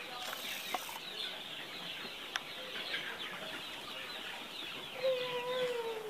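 A flock of chickens clucking and cheeping together, with one longer drawn-out call near the end.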